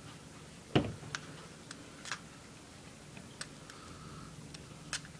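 Small scattered clicks and taps of hands working a Zippo lighter's metal insert while packing cotton and the wick back in, with one louder knock about a second in.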